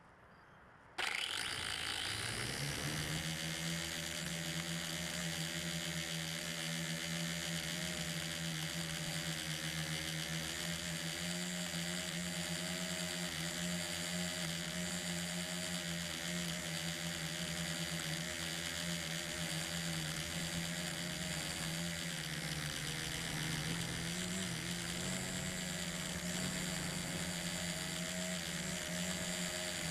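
LaTrax Alias quadcopter's motors and propellers spinning up about a second in, then a steady buzzing whine as it climbs, heard close from a camera mounted on the drone.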